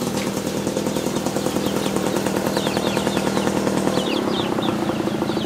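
A small engine running steadily with a fast even beat, its pitch dropping slightly about four seconds in. A few short high chirps sound over it.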